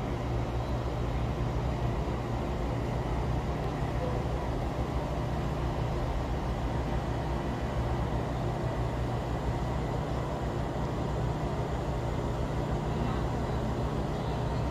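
Steady hum of road traffic, an even low rumble with no separate passing vehicles standing out.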